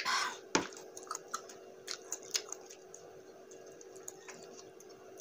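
A heavy glass beer mug of water set down on a wooden tabletop with one sharp knock about half a second in, just after a short breathy rush. Then a scatter of small mouth clicks and lip smacks, after a drink.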